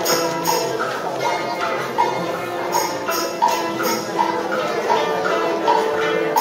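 Guzheng (Chinese zither) playing a simple melody, one plucked note about every half second, with short bursts of jingling like a tambourine or bells shaken in time, mostly near the start and again in the middle.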